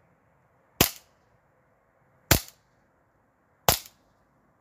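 Novritsch SSP5 CO2 gas-blowback airsoft pistol fired three times, about a second and a half apart, each shot a sharp crack with the slide cycling.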